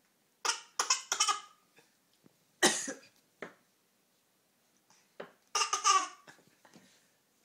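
Coughing: a woman's short, tickly coughs and a toddler copying them, with some laughter mixed in. The sounds come in short clusters, about half a second in, once loudest just before the three-second mark, and again about two-thirds of the way through.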